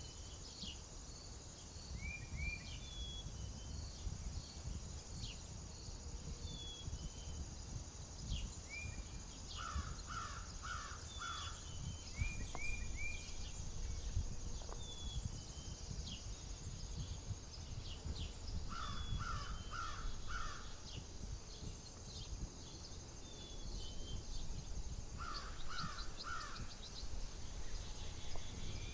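Wild outdoor ambience: a bird calls in three runs of four quick calls, while smaller birds chirp repeatedly. Wind rumbles on the microphone throughout.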